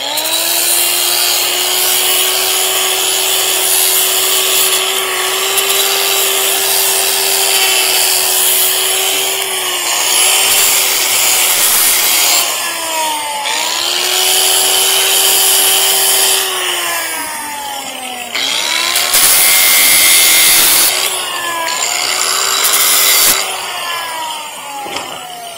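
Electric power sander sanding the tenons of timber stair treads, the motor whining steadily with gritty rasping that swells when pressed into the wood; the motor's pitch sags and recovers several times as it is loaded and eased off, and it winds down near the end.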